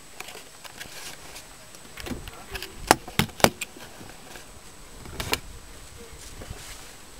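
Camera handling noise as the camera is set up: a few sharp clicks and knocks, three close together about three seconds in and one more about five seconds in, over low rumbling and rubbing.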